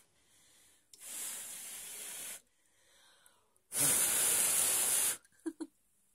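Three bursts of hissing noise, each about a second and a half long, the last one the loudest.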